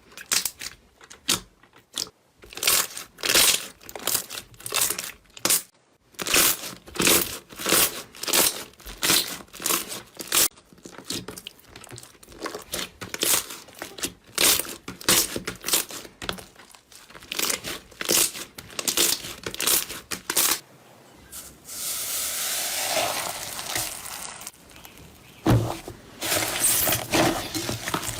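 Slime being squeezed and pressed by hand, with crunchy, crackling squelches about twice a second. Near the end there is a few seconds of steady crinkling hiss before the crackling strokes start again.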